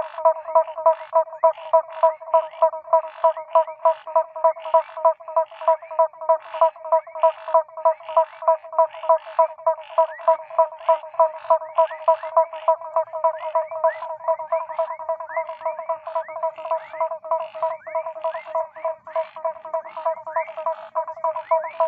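Chorus of frogs calling after rain: a fast, regular series of short pitched notes, about two to three a second, with other frogs adding short rising chirps that grow more frequent about halfway through.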